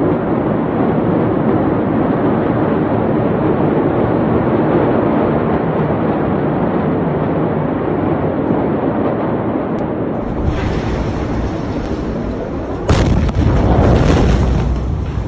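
Steady rushing noise, then a deep rumble building about ten seconds in. About thirteen seconds in, the blast wave of a massive explosion arrives as a sharp, loud bang, followed by a long low rumble.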